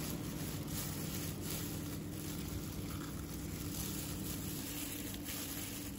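Spoon stirring rice mixed with seaweed flakes in a plastic bowl: faint soft scraping with a few light taps, over a steady low background hum.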